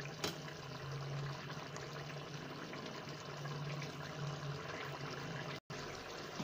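Potato curry simmering in a large aluminium kadai on a gas burner: a steady, quiet bubbling hiss over a low hum. There is a brief click about a quarter second in, and the sound cuts out for an instant near the end.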